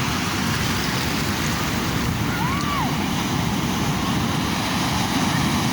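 Sea waves washing onto a shore in a steady rush, with wind buffeting the microphone. A short rising-then-falling call sounds once, about two and a half seconds in.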